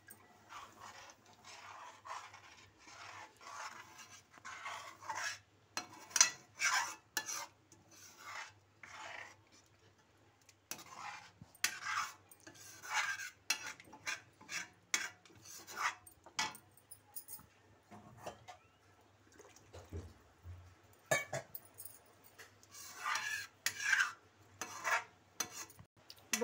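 Steel ladle scraping and stirring around a metal kadai of thin masala gravy, in irregular bunches of short scrapes with pauses between.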